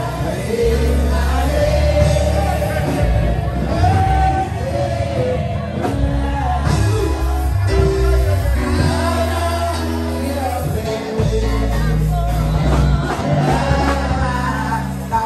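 Church congregation singing a praise song over loud music with heavy held bass notes.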